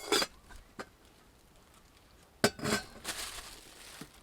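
Metal cookware pieces from a Zebra stainless steel billy pot kit clinking as they are handled and lifted out. There are a few sharp clinks near the start, a louder clatter with a short ring about two and a half seconds in, then a brief rustle.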